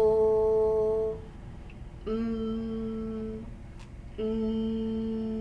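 A woman's voice holding three sustained consonant sounds one after another, /l/, /m/ and /n/, each on one steady pitch for over a second with short pauses between.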